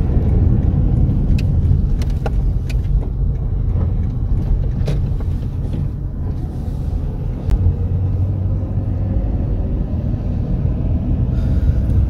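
Steady low rumble of a car driving along a paved road, heard from inside the car, with a few faint clicks.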